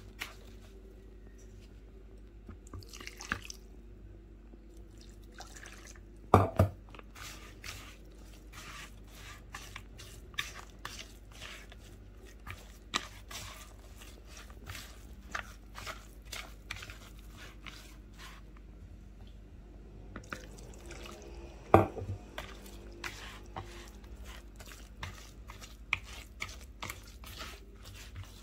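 Hands squeezing and rubbing fine semolina moistened with warm milk and melted butter in a bowl: many small wet squishing and crackling sounds as the grains take up the milk. Two louder thumps stand out, about 6 s and 22 s in.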